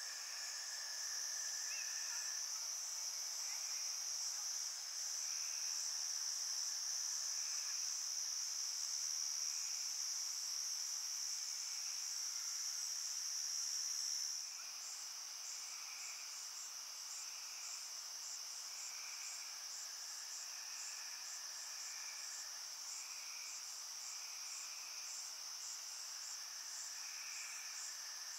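Night insect chorus of crickets and other insects: a steady high-pitched trill with short chirps repeating over it about once a second. The trill drops in loudness suddenly about halfway through.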